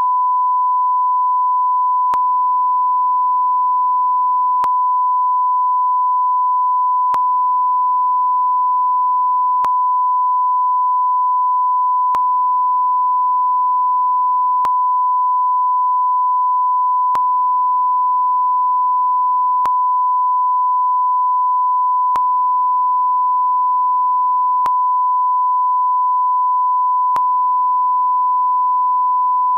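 Steady 1 kHz sine-wave line-up tone, the reference tone that goes with colour bars at the head of a broadcast programme master.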